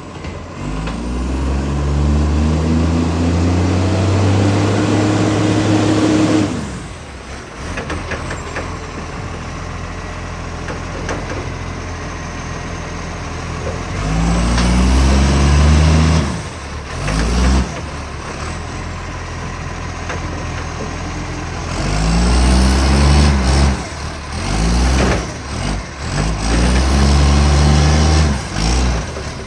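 Garbage truck's diesel engine with a huge exhaust leak, revving up about four times and dropping back to a lower, rougher run in between.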